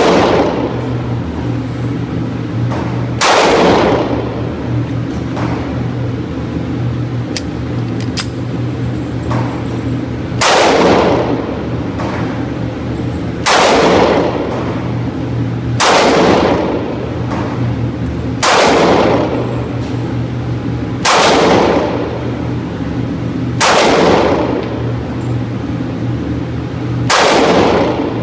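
Pistol shots from a Glock 27 in .40 S&W firing Winchester White Box jacketed hollow points: about nine single shots fired slowly, two to three seconds apart, with a longer pause after the second. Each report rings out and fades over about a second, over a steady low hum.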